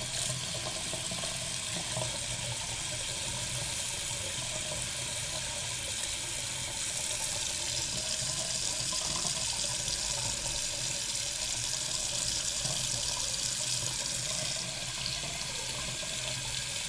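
Water running steadily from a newly installed bathroom faucet into a pedestal sink basin, turned to hot.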